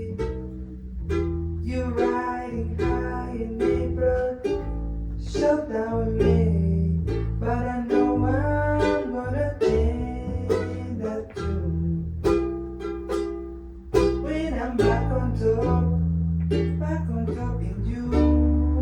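A small band playing live in a small room, without singing: plucked strings (ukulele or guitar) over a steady bass line whose notes change about once a second.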